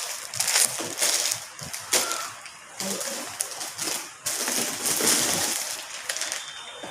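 Plastic packaging crinkling and rustling in irregular bursts as packs of dried seaweed are handled.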